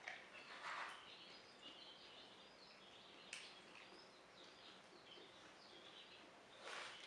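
Faint birds chirping, with a soft rustle just under a second in and again near the end, and a single sharp click about three seconds in.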